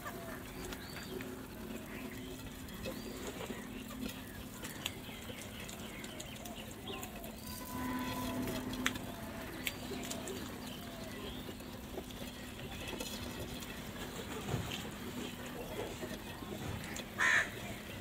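House crows: a quiet background of faint, scattered small-bird chirps with a few soft clicks, then one short, loud crow caw about a second before the end.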